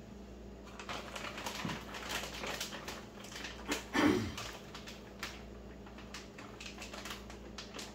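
Kitchen preparation noises: a run of small clicks, knocks and rustles as utensils and ingredients are handled, with a louder knock and a brief low voice-like sound about four seconds in, over a steady electrical hum.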